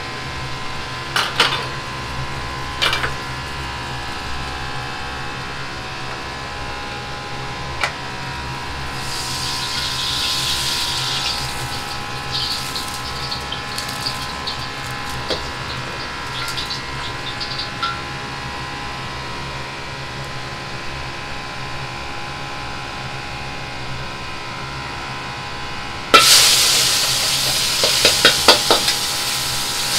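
Wok cooking over a high gas flame under a steady kitchen hum: a few metal clanks in the first eight seconds, patches of sizzling hiss in the middle, then loud sizzling that starts abruptly about 26 seconds in, with utensils clattering against the wok.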